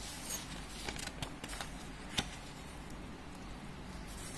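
Quiet room hiss with a few soft clicks of handling noise, one a little sharper about two seconds in.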